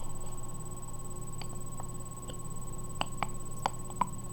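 Plastic glue bottle being handled and squeezed out into a container, giving a handful of small sharp clicks and ticks, most of them in the second half, over a steady low hum.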